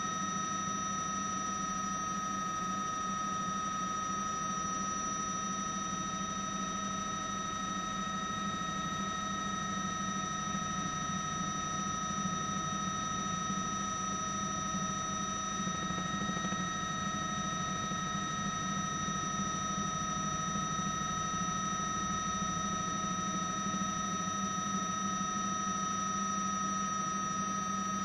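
Helicopter turbine engine noise heard from the cabin: a steady drone with several steady high whining tones over a hiss.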